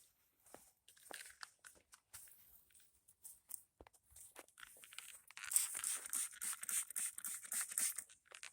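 Hand cleaning of a wood chipper: irregular scraping and rubbing on its surfaces, sparse at first and busier and louder from about halfway through.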